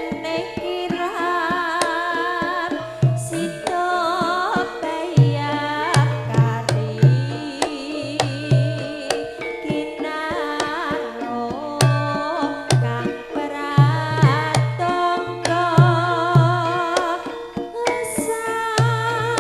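Javanese gamelan music: a female sinden sings with a wavering vibrato over sustained gamelan tones, while the kendang drum beats out clusters of deep strokes every second or two.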